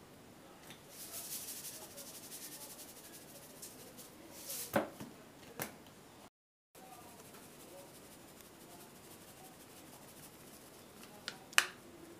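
Salt being shaken and sprinkled over raw chicken drumsticks: a soft rattling hiss of grains for a couple of seconds. Then come sharp clicks and knocks of the seasoning containers being handled on the counter, the loudest about halfway in and two more near the end, with the sound cutting out for a moment between them.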